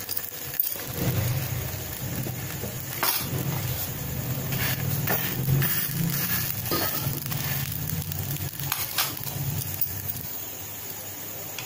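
Coconut bara frying in shallow oil on a flat metal tawa, sizzling steadily, with a few short scrapes and taps of a spatula against the pan.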